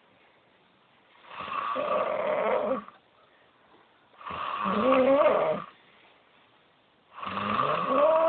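A person snoring in a slow, steady rhythm: three snores, each about a second and a half long with a wavering, buzzing pitch, about three seconds apart. The breaths between them are nearly silent.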